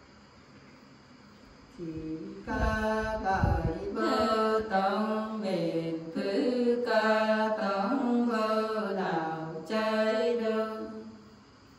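Unaccompanied Nùng folk singing in women's voices: slow phrases of long, wavering held notes. It begins about two seconds in after a short pause and fades out near the end. A low thump sounds under the voice about three seconds in.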